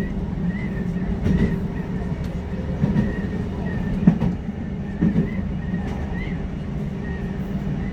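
Electric passenger train running at speed, heard from inside the car: a steady rumble of wheels on the track, a faint high whine, and a few irregular thumps.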